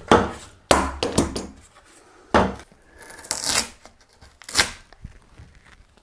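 Hand tools and cure materials being taken off a freshly cured carbon-fibre patch on a bike frame: a spring clamp released and the thin sheet metal and peel-off layers pulled away. About five separate sharp clacks and rasping tearing sounds.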